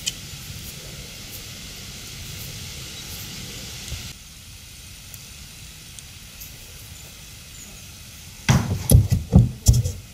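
Steady outdoor hiss, then from about eight and a half seconds a quick run of heavy, low thuds as a horse's hooves step up onto a hollow plastic pedestal.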